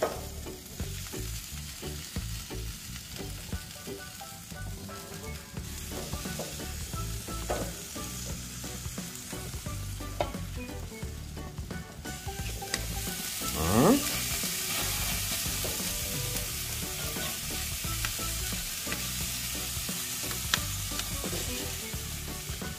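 Food sizzling as it sears on a hot grill. The sizzle grows louder a little past halfway, where a short rising squeak stands out.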